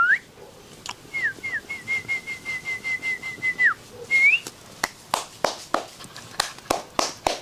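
A person whistling to a puppy: two short falling notes, then a quick run of chirped notes about six a second that ends in a falling glide, and a short rising whistle around four seconds in. After that comes a string of sharp clicks, a few a second.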